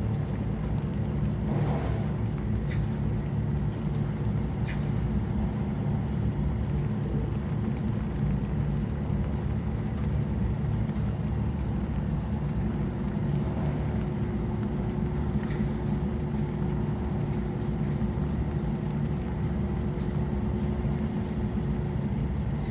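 Ventilation fan running with a steady low hum, with rain falling and a few faint short sounds over it.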